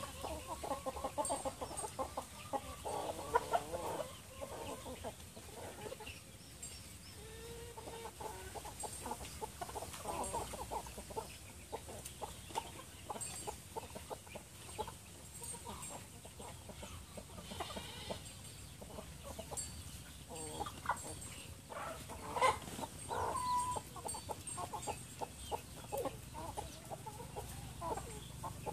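Free-range chickens clucking as they forage, with bursts of clucking near the start, again about ten seconds in, and once more past twenty seconds.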